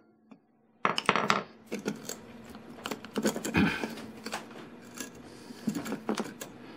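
Metal clinks and scrapes of steel locking pliers and a punch being handled on concrete pavers, with steel wire rope rubbing as it is pulled through an aluminium ferrule. The clicking starts about a second in.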